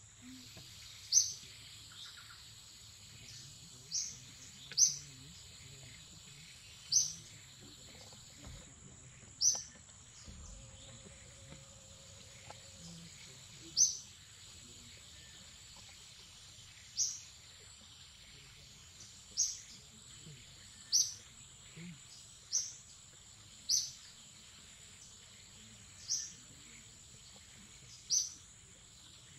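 A bird repeating a short, high, downward-sliding chirp, about a dozen times at uneven gaps of one to three seconds, over a steady high-pitched insect drone.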